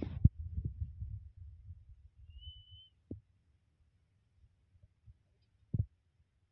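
Dull low thumps and knocks as woven bamboo-strip trap panels are handled and set down on concrete, busiest in the first two seconds or so, then two single knocks. A short thin high whistle sounds about two and a half seconds in.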